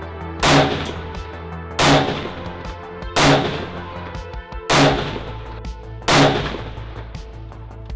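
Background music with sustained tones and five loud percussive hits, evenly spaced about one and a half seconds apart.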